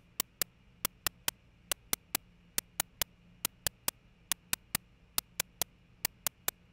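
A synthesized snare drum from a p5.js sketch: white noise gated by a very short envelope, so each hit is a sharp noisy click. The hits loop in a fixed pattern, three quick ones about a fifth of a second apart, repeating a little under once a second. It is crude, not a particularly great snare drum.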